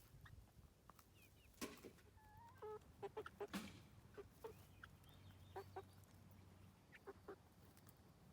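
Young chickens, about three months old, clucking softly in short calls, with a few higher chirping calls mixed in. Two sharp clicks stand out, about a second and a half in and again after three and a half seconds.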